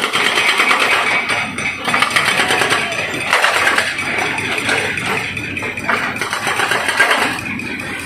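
Excavator tearing down a concrete house: a steady, rapid rattle and clatter of concrete and debris breaking and falling, over the running engine, with louder crashes about three seconds in and near the end.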